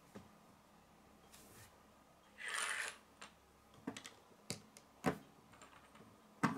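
Plastic Lego bricks being handled and pressed onto a model: a handful of short, sharp clicks and taps spread through, with a brief rustle a little before the middle.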